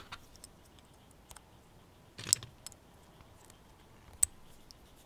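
Hobby knife blade dragged through the silicone adhesive on an 18650 lithium-ion cell, with a brief scrape about two seconds in and a sharp click about four seconds in, among faint ticks from handling the cell and blade.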